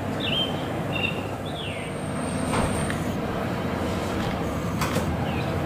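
Distant Boeing 767-200 jet landing, heard as a steady rumbling roar. Short chirping bird calls come over it near the start, and two faint clicks come in the second half.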